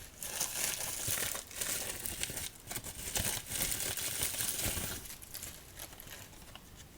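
Crinkly packaging being handled by hand: dense crackling and rustling for about five seconds, then fainter.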